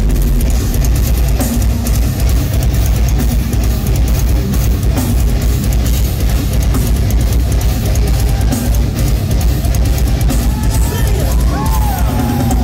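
Deathcore band playing live at full volume: heavy distorted guitars and bass over fast, dense drumming.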